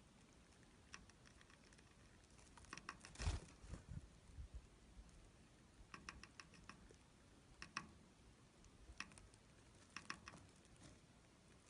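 Faint short chirps of small wild birds, coming in quick clusters of a few notes at a time, with a single dull thump about three seconds in.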